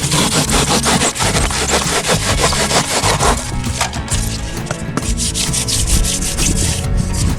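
Hand sawing: quick back-and-forth strokes rasp through a small filler piece, easing briefly about halfway through before going on.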